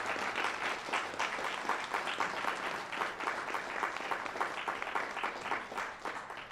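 Audience applauding: many hands clapping in a dense, even patter, cut off suddenly near the end.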